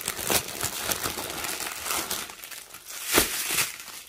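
Clear plastic packaging crinkling and crackling as strings of diamond painting drill packets are pulled from their plastic sleeve, in irregular crackles with a louder one about three seconds in.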